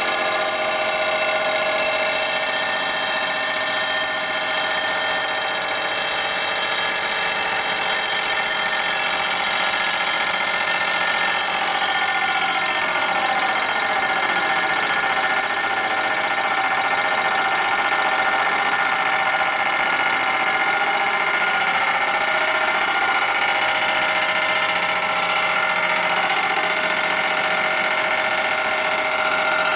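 Machine tool running steadily while taking a light 3-thousandths cut across the chrome-plated primary cover's gasket face to bring it flat. There is a steady whine made of many tones, and a cluster of tones dips and rises again through the middle.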